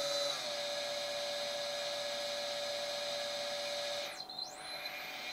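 Brushless DC motor of a tool post grinder, driven by a VESC electronic speed controller, running with a steady whine that steps slightly lower just after the start. About four seconds in, the whine sweeps down and back up as the motor is reversed.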